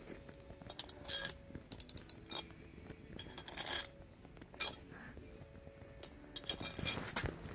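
Scattered light metal clicks and clinks of socket-and-ratchet work on a stuck bolt, some in quick little clusters of ticks.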